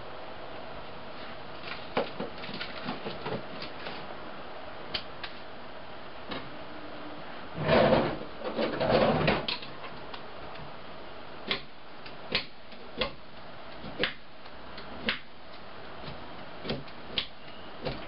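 Kitchen clatter while cooking: scattered knocks and clicks of utensils and cookware over a steady hiss, with a louder stretch of clatter about eight seconds in and single knocks every second or so after it.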